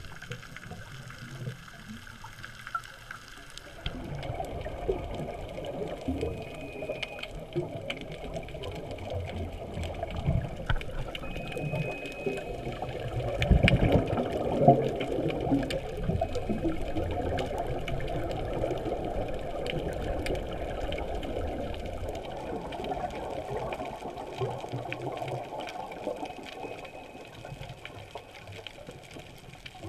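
Underwater noise picked up by a dive camera on a reef: a rushing, bubbling water sound with many sharp clicks scattered through it. It comes in about four seconds in, is loudest around the middle, and eases off near the end.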